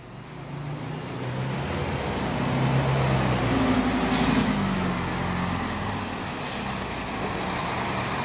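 Scania K410 coach's six-cylinder diesel engine pulling away and growing louder, its note climbing and then dropping about halfway through as it changes gear. There are two short hisses of air, one around the middle and one a couple of seconds later.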